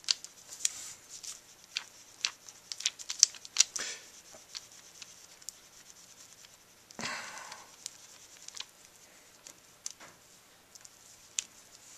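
Small stick scraping and ticking against a clear plastic sheet as it stirs two-part epoxy, with the sheet crinkling under the hand. A quick run of sharp ticks fills the first few seconds, a brief rustle comes about seven seconds in, then only scattered light ticks.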